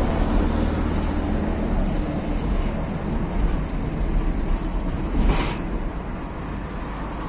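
Road noise of a car driving along: a steady low rumble of engine and tyres, with a brief louder rush of noise about five seconds in.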